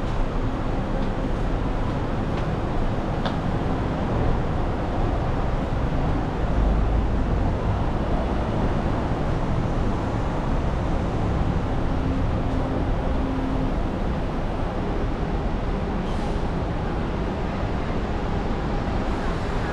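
Steady city street traffic: cars and vans running on the road beside the footpath, a continuous low rumble that swells briefly about seven seconds in.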